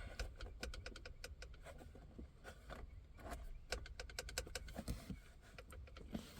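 Faint, irregular clicks and light taps of small hard parts being handled while the horn contacts under a steering-wheel airbag are checked.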